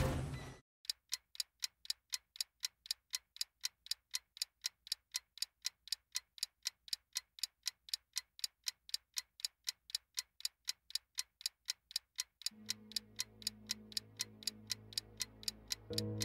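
Clock ticking, added as a sound effect, at a quick, perfectly even pace. About three quarters of the way through, soft, low, held music notes come in under the ticking and grow louder near the end.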